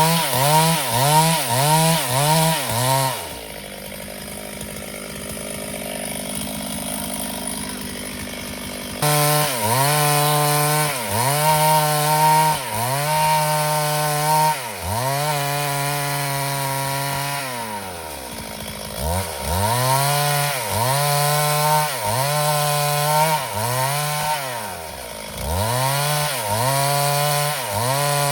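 Two-stroke chainsaw running at high revs, its pitch dipping and recovering again and again as the chain bites into wood. From about three to nine seconds in the engine tone gives way to a quieter, noisier stretch, and later the engine slows in a long falling glide before revving up again.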